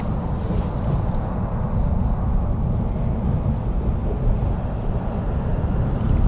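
Wind buffeting the microphone: a steady, fluctuating low rumble.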